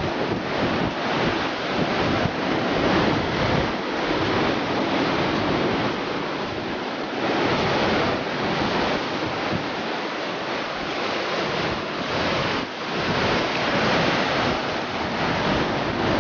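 Heavy surf breaking and washing over rocks, a loud steady rush that swells and eases with the waves, with wind buffeting the microphone.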